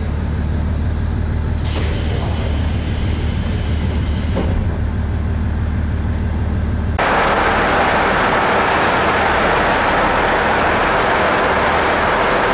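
KiHa 40 diesel railcar standing with its engine idling in a low rumble, with a couple of faint clicks. About seven seconds in, the sound switches abruptly to a louder, steady rushing noise.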